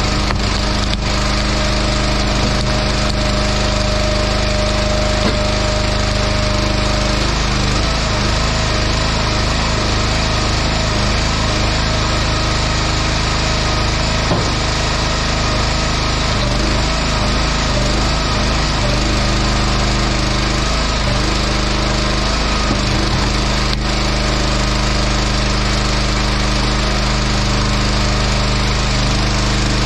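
Small gas engine of a hydraulic log splitter running steadily, its note dipping and recovering a few times as the splitter is loaded. A few faint knocks of wood are heard over it.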